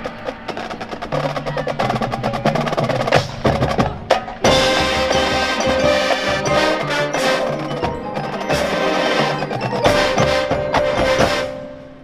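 High school marching band with its front-ensemble mallet and auxiliary percussion playing a percussion-heavy passage. After a brief break about four seconds in, the full band comes in louder, and the sound falls away near the end.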